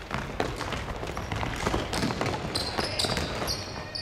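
A basketball bouncing on a wooden gym floor amid players' running footsteps. A few short, high sneaker squeaks come in the second half.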